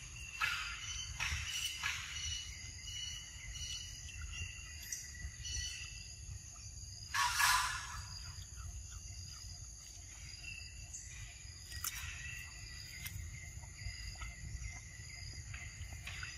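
Outdoor ambience of insects droning in several steady high tones over a low rumble, with a few faint clicks and one short, loud rustling burst about seven seconds in.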